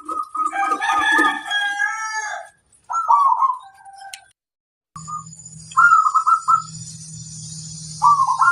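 Zebra doves (perkutut) cooing in short, repeated trilled phrases. In the first couple of seconds a rooster crows over them. About halfway the sound drops out briefly, and after that a low hum and hiss run under the cooing.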